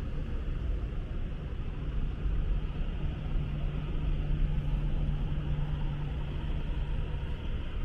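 Street traffic on a wet road: a vehicle engine's steady low rumble and hum, which holds one even note for a few seconds in the middle, over a steady hiss of rain and wet tyres.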